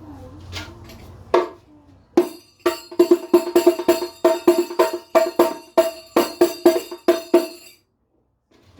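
Hadroh rebana frame drum with a thick, tightly tensioned skin, struck by hand: one stroke about a second and a half in, then a fast run of strokes, each ringing with a clear pitch, which stops near the end.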